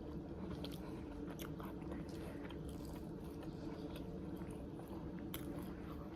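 Close-up eating sounds: chewing and biting food, with scattered small crunches and wet mouth clicks, over a steady low hum.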